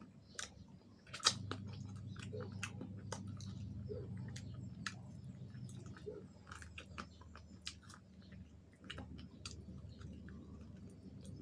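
Close-miked chewing and biting of crispy fried chicken wings: irregular sharp crunches and wet mouth clicks.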